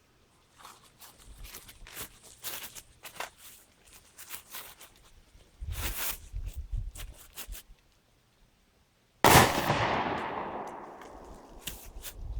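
A single gunshot about nine seconds in, with a long echo that fades away over a few seconds. Before it there are light clicks and handling noises.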